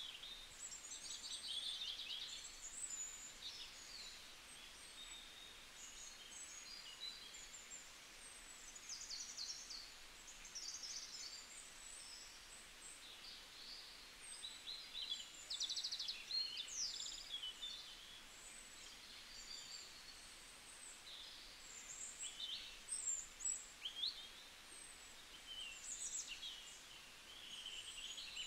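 Birds chirping and twittering: many short, high, quick calls that overlap throughout, over a light steady hiss.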